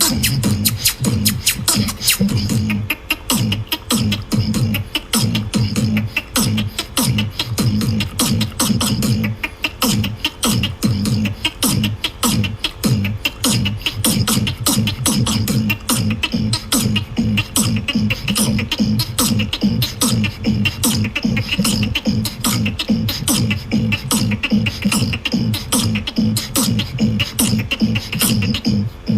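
Human beatboxing: a fast, unbroken pattern of sharp mouth clicks and snares over pulsing low bass sounds, cutting off suddenly at the end.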